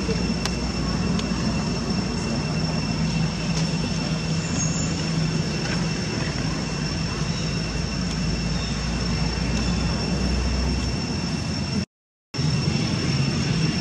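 A steady, noisy outdoor drone with a low hum and a faint, steady high-pitched whine, broken once near the end by a half-second drop to silence.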